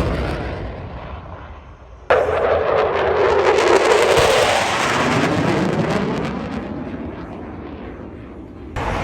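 Loud aircraft engine roar as an airplane passes, its pitch falling as it goes by. It breaks in suddenly about two seconds in, fades slowly, and a fresh roar cuts in abruptly at the very end.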